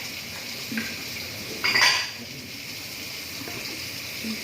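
Kitchen dishes and cutlery clinking: a light knock just under a second in, then a brief, louder ringing clatter about two seconds in, over a steady background hiss.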